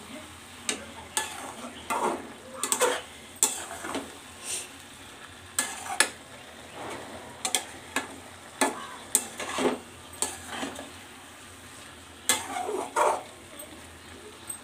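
A flat metal spatula stirring potatoes and fenugreek greens in a metal kadai, with irregular scrapes and clinks against the pan over a low sizzle of the cooking greens.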